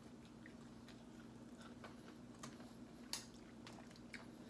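Quiet dinner-table eating sounds: scattered faint clicks of cutlery on a foil tray and plates, with one sharper click about three seconds in, over a steady low hum.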